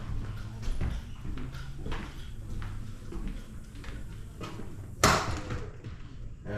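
Footsteps and light knocks on a bare wooden subfloor over a low steady hum, with one sharp bang about five seconds in.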